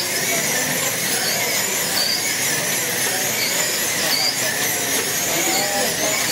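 Several wing-class slot cars racing around the track: the high-pitched whine of their small electric motors dips and rises about once a second as the cars brake into and accelerate out of the corners.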